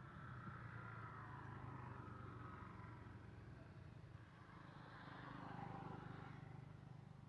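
Faint, steady hum of a distant motor vehicle engine, swelling slightly a little after halfway.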